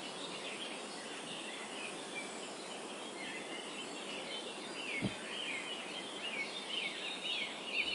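Many small birds chirping, short downward-sliding calls that come thicker toward the end, over a steady background hiss. A single soft low thump about five seconds in.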